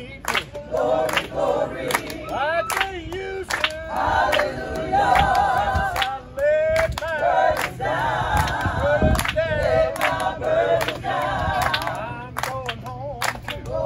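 Gospel choir of men's and women's voices singing, with steady hand claps keeping the beat.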